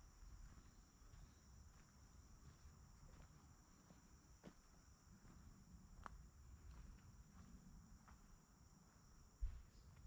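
Faint chorus of crickets, a continuous high-pitched buzz that holds steady throughout, over a low rumble, with a few soft clicks and a single low thump shortly before the end.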